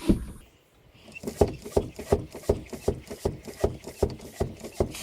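A bicycle track pump being worked quickly, from about a second in, at about three strokes a second. It is inflating a tube inside a mountain bike tyre to seat the tyre's beads on the rim.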